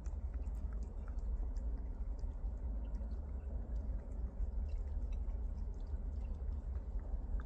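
A cat chewing its food, with many small scattered clicks over a steady low rumble.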